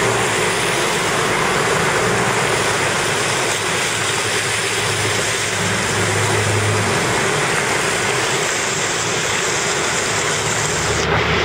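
Motor vehicles driving through flood water on a street: steady splashing and churning of water thrown up by the wheels over a low running engine hum. The sound changes abruptly about eleven seconds in.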